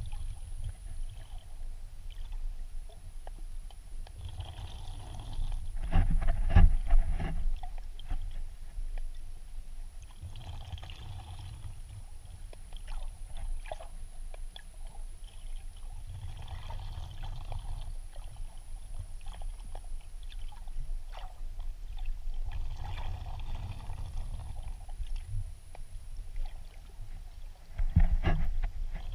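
Water sloshing and gurgling around a camera held just below the sea surface while snorkelling, swelling every five or six seconds, loudest about six seconds in and again near the end.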